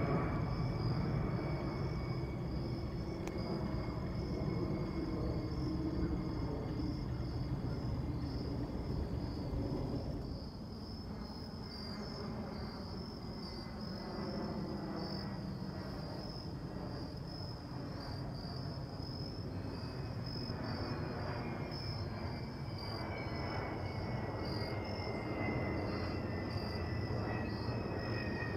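Boeing 767-300ER jet airliner flying overhead: a steady low rumble with a faint engine whine that slowly falls in pitch in the second half. Insects trill high and steadily throughout.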